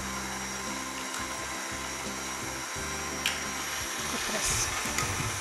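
KitchenAid Artisan stand mixer running, its flat beater turning through a thick batter of oil and brown sugar. A single sharp click comes about three seconds in.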